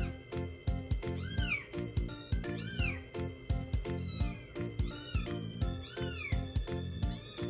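Young calico kitten giving short, high, rising-and-falling mews about once a second while nursing from a milk bottle, over background music with a steady beat.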